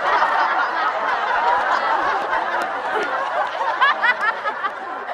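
A crowd of kids laughing together, many voices overlapping at once.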